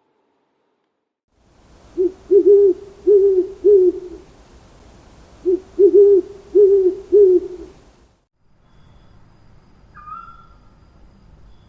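Owl hooting: two phrases of four or five low hoots each, about a second and a half apart, over a light hiss. After a short break, one fainter, higher short call comes near the end.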